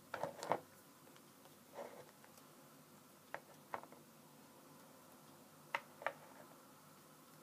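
Light taps and clicks over faint room tone, several in quick succession at the start, then pairs a third of a second apart: small toys being handled and set down on a hard surface.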